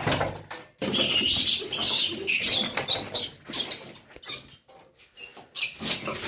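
A rat squealing in a series of high-pitched cries as a puppy bites and shakes it. The cries come in a run starting about a second in, then give way to quieter scuffling and clicks of paws on concrete.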